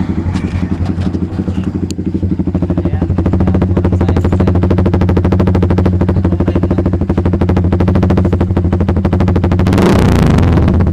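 Kawasaki Barako motorcycle's single-cylinder engine running through a bullet exhaust pipe with the silencer removed: a loud, steady, fast popping idle. Near the end the throttle opens and the note turns louder and rougher.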